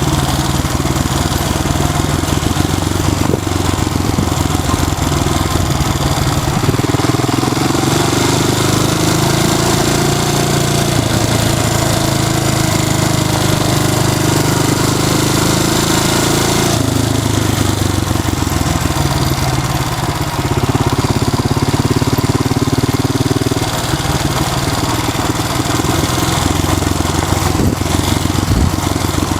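Honda XL250S four-stroke single-cylinder engine running under way on a dirt trail bike, its note rising and falling as the ride goes on.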